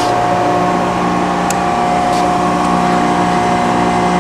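Brown & Sharpe Micromaster surface grinder running, a steady machine hum with a steady whine, from its motors and fan. One short click about a second and a half in.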